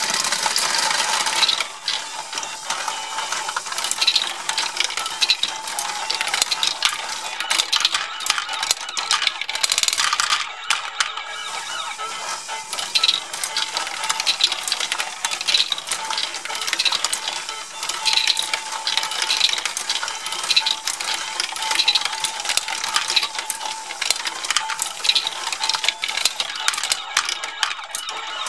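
Small plastic Lego balls clattering and rattling through a Lego pachinko board's pegs and chutes, with the clicking of Lego Technic gears and a Lego Boost motor running the module.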